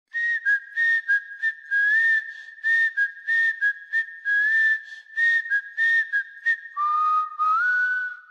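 Whistled tune: a high, clear tone in short phrases, flicking between two close notes. Near the end it drops to a lower note and steps back up.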